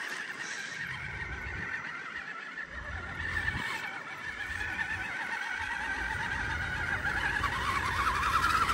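Budget RC crawler's electric motor and gear drivetrain whining steadily as it wades through shallow creek water, getting louder near the end with its pitch dropping a little.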